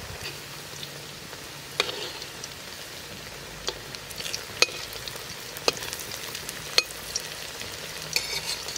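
Prawn and soya chunk pakoras sizzling as they deep-fry in mustard oil in a wok, with a spatula clicking sharply against the wok about five times as they are turned.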